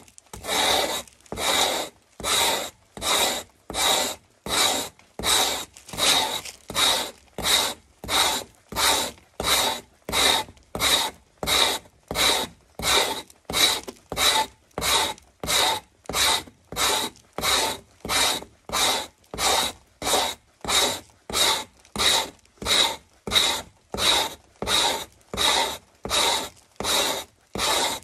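Hide scraper rasping down a frozen moose calf hide stretched on a frame, in steady, even strokes of about three every two seconds. This is frost scraping: the scraper is shaving off the ice frozen into the hide to thin it.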